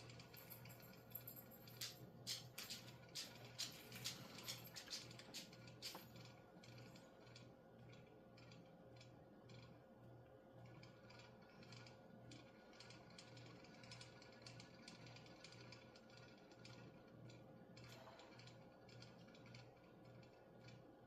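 Faint, irregular small clicks and crackles from soldering work at the bench, thickest in the first six seconds and sparser after, over a steady low electrical hum.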